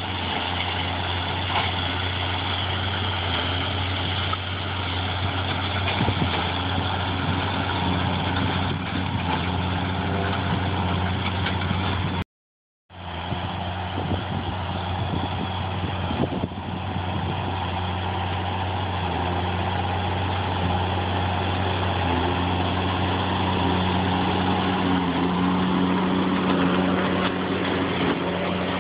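Fendt 716 tractor engine running steadily under load while it pulls a New Holland BB940 big square baler baling hay. The sound cuts out completely for about half a second around twelve seconds in.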